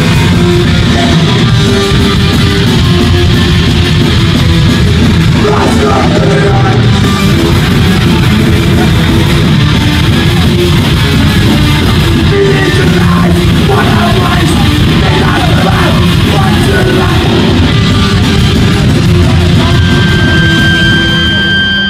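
A punk band playing live at full volume: electric guitars, bass, drums and vocals.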